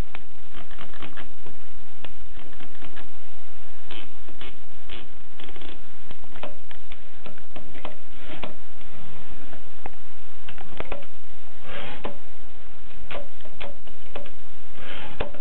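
Groma Kolibri manual portable typewriter being typed on: irregular sharp clicks of the typebars striking, with a couple of longer, noisier strokes in the second half.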